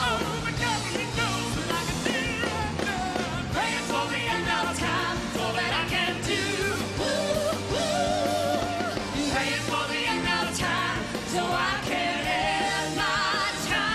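Live rock band playing with a man singing lead vocals into a handheld microphone.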